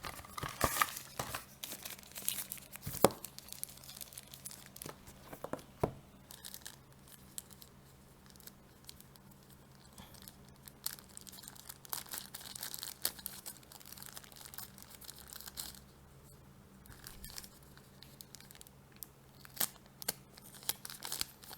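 Packaging being opened by hand: paper seal and wrapping tearing and crinkling in irregular bursts, with a few sharp clicks and knocks from handling the box. A faint steady fan hum runs underneath.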